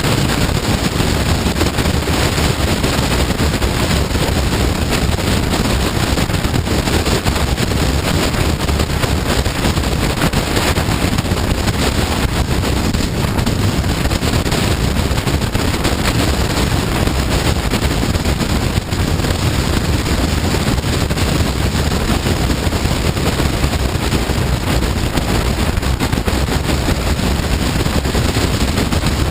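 Steady rush of wind buffeting the microphone on a moving Honda CBR954RR sport bike, with no shots or breaks.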